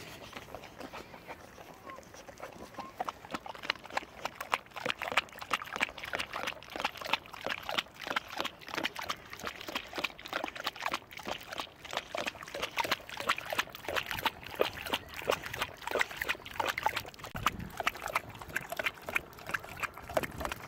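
A Boxer dog lapping water from a plastic bottle held to its mouth: a steady run of quick, wet licks.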